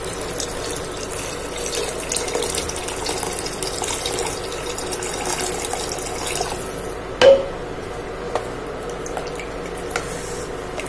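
Water poured from a jug into a pressure cooker of lentils, a steady splashing pour that stops about seven seconds in, followed by one sharp knock, then a few faint clicks.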